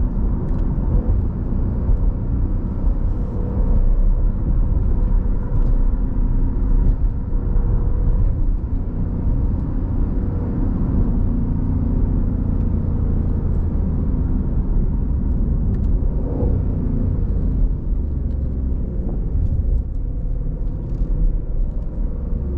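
Steady low road and engine rumble inside the cabin of a V8 Jeep Grand Cherokee SRT driving in traffic, with a few faint ticks.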